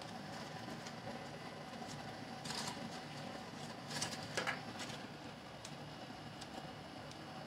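Kitchen scissors snipping raw refrigerated biscuit dough into a baking dish: a few short, quiet cuts and handling sounds, about two and a half seconds in and again around four seconds in, over a low steady hiss.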